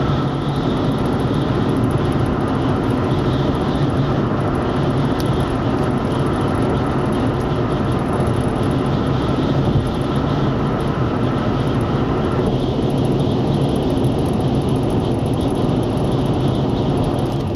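Steady engine drone and road noise heard from inside a moving vehicle, growing a little duller about two-thirds of the way in.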